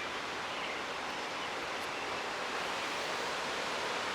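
Gusty thunderstorm wind blowing steadily, an even rushing hiss.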